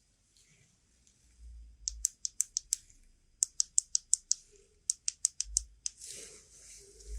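Three quick runs of light, sharp clicks, about six a second, with dull low bumps of handling between the runs.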